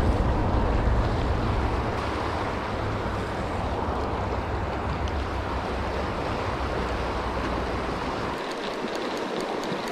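Shallow mountain river rushing over rocks, a steady hiss of moving water, with a low wind rumble on the microphone that drops away about eight seconds in.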